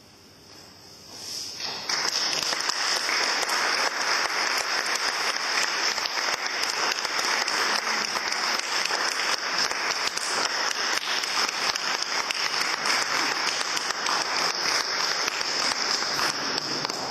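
Audience applauding: the clapping swells in over the first two seconds, holds steady, and dies away near the end.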